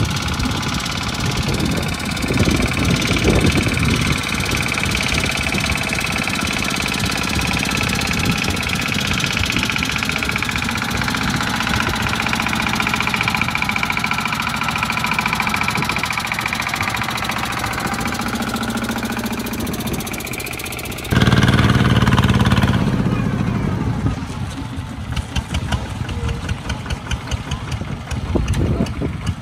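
Single-cylinder diesel engine of a two-wheel walking tractor running steadily under heavy load as it drags a loaded trailer through deep mud. About three quarters of the way through there is a short, louder stretch. After it the engine sound changes to a pulsing chug with separate, evenly spaced firing beats.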